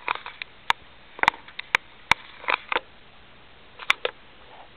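Fine-point Sharpie marker drawing on paper: a run of short, irregular scratchy strokes and clicks as the lines are put down.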